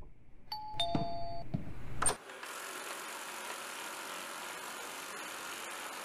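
Two-note electronic chime, a falling ding-dong, about half a second in. A sharp click follows at about two seconds, then a steady faint hiss.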